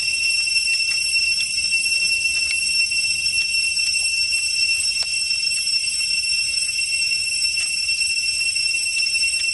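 Insects droning in a steady, shrill chorus of several high tones, with a few faint soft clicks as cooked chicken is torn apart by hand.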